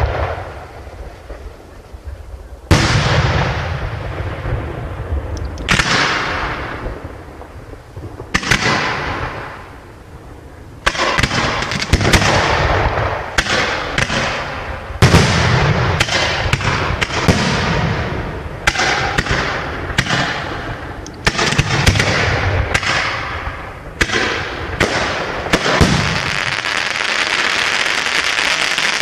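Consumer fireworks going off: sharp bangs with fading tails, a few seconds apart at first, then many in quick succession. Near the end they give way to a steady, dense crackling hiss from a glittering burst of crackle stars.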